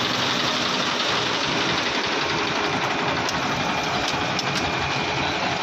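A vehicle engine running steadily under an even rushing noise.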